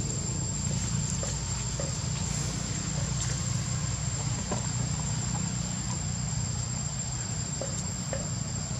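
Insects droning in the forest, two steady high-pitched tones held throughout, over a steady low rumble, with scattered faint clicks and rustles.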